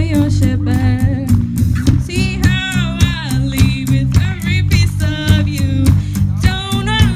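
A woman singing into a microphone with a live rock band: drum kit and electric guitar playing steadily under a melodic vocal line.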